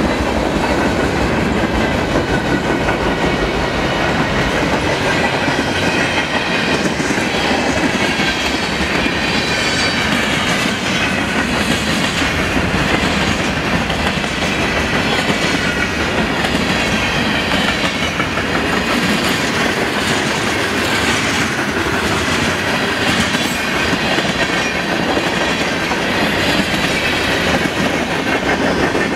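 Freight cars of a slow manifest train (tank cars and covered hoppers) rolling past close by: a steady rumble and clatter of steel wheels on the rails, with a faint wavering high-pitched squeal from the wheels through much of it.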